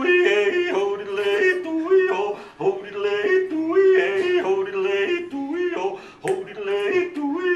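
A man yodeling solo, his voice flipping quickly back and forth between two notes in short repeated phrases, with brief breaks between phrases.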